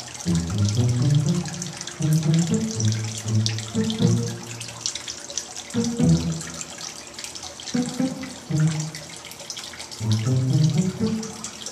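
Water trickling from a small artificial-rock waterfall fountain into its pond basin, a steady splashing hiss. Background music with held low notes plays over it.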